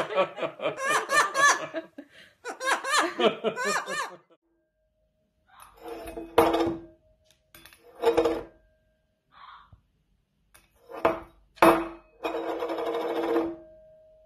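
Rapid pulsed laughing for about four seconds. After a short pause come several short, loud, harsh bursts and a longer noisy burst near the end.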